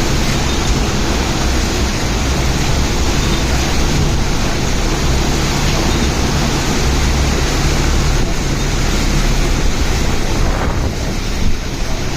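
Loud, steady rushing noise with a low, steady hum underneath, without a break.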